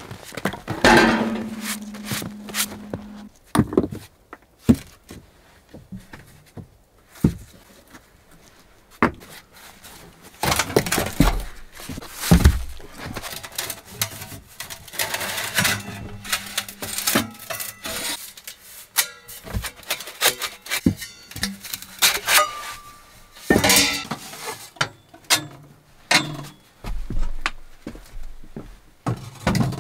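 Sheet-metal wood stove and stovepipe clanking and knocking as they are handled and carried, with irregular thuds on wood. About a second in, one clang rings on for a couple of seconds.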